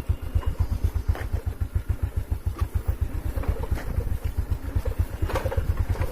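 Motorcycle engine running with a rapid, even low pulsing, and light rattles over it.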